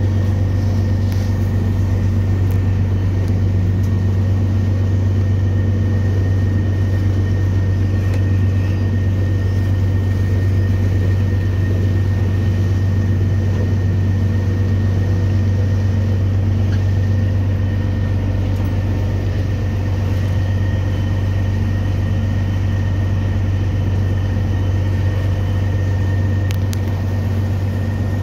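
Motorboat engine running steadily, heard from on board while cruising: a loud, even low drone with a thin steady whine above it and the hiss of water along the hull.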